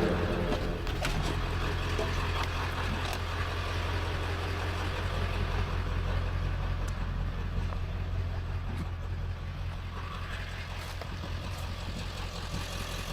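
A vehicle engine running steadily with a low, even hum, and a few faint knocks over it.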